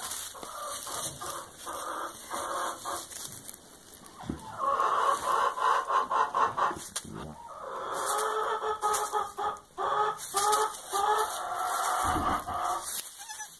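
Farm animal calls: two long runs of rapid, pulsing calls, the first starting about four seconds in and the second from about eight seconds in, with faint straw rustling.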